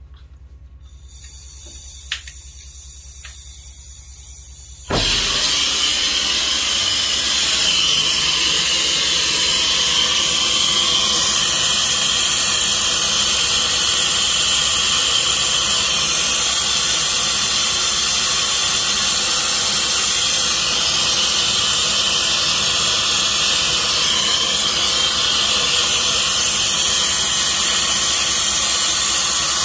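A faint hiss with a few sharp clicks, then about five seconds in a brazing torch lights with a sudden jump to a loud, steady hiss of the flame. The flame heats a copper refrigeration line for brazing while nitrogen flows through it.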